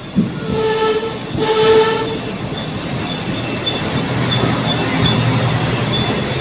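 Diesel railbus arriving: two blasts on its horn in the first two seconds, the second a little longer, then the train rolling past along the platform with its engine humming and a faint high squeal as it slows.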